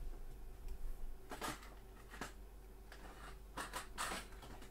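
A few faint light clicks and rustles of small objects being handled on a workbench, over a low steady hum.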